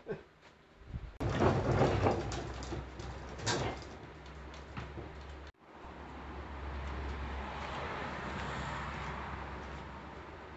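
Irregular clanks, knocks and scraping of a steel-framed barrel-float ATV chassis being lifted down off a wooden workbench, lasting about four seconds and then cutting off suddenly. A steady rushing hum follows, swelling and then slowly fading.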